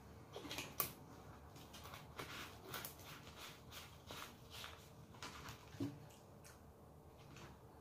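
A plastic vitamin C tablet bottle being handled and opened: a string of light, irregular clicks and rattles as the cap is worked, then a soft knock about six seconds in as the bottle is set down on the table.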